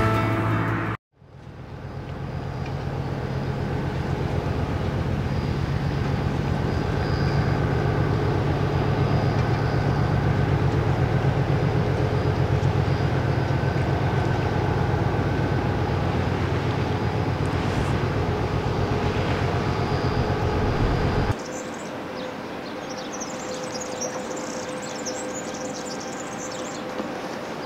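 Harbour tug's diesel engine running with a steady low drone as it passes close, fading in after a brief dropout about a second in. It cuts off suddenly about 21 seconds in, leaving quieter harbour ambience with faint, rapid high-pitched chirping.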